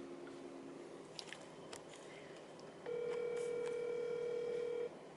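Ringback tone of an outgoing phone call: one steady ring tone about two seconds long, starting about three seconds in, while the call rings at the other end before it is answered.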